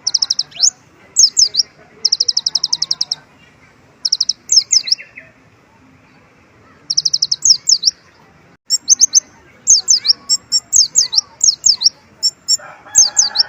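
Kolibri ninja sunbird singing in loud, high-pitched bursts: rapid even trills and quick down-sweeping chirps, repeated with short pauses. Its song is filled with phrases copied from white-eyes (pleci).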